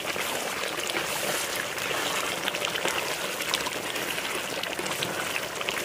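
Chicken masala with ghee simmering and sizzling in a cooking pot: a steady hiss full of small crackling pops.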